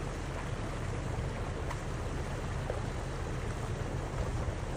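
Floodwater rushing into a curbside storm drain inlet: a steady, churning wash of water with a strong low rumble underneath.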